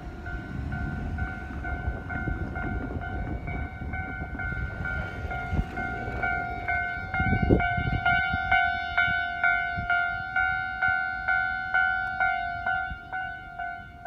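Railway level-crossing warning bell ringing: a two-tone electronic clang repeated about three times a second, signalling an approaching train. It becomes louder and sharper about eight seconds in, as a low rumble underneath dies away.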